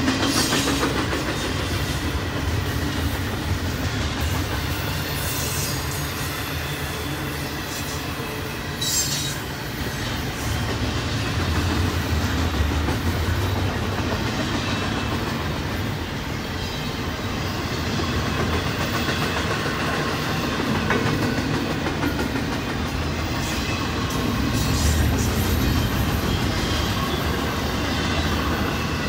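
Double-stack intermodal container well cars rolling past at speed, their steel wheels running steadily on the rails, with a few brief high-pitched squeals from the wheels.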